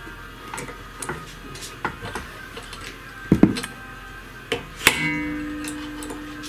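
Steel screwdriver clicking and scraping against the multi-tab lock washer on a walk-behind tractor's gearbox shaft nut, prying its tabs back so the nut can be undone. There are scattered light metal clicks, a duller knock a little past three seconds, and a sharp metal strike near five seconds that leaves a short ringing tone.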